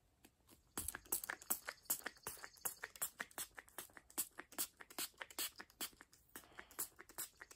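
Quick, irregular clicks and scratches, several a second, from hands scrubbing and handling a small object during cleaning. They start about a second in.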